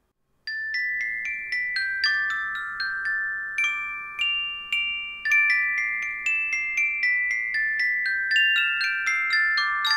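Background music: a bell-like melody of ringing notes, about three a second, each note ringing on under the next, starting about half a second in.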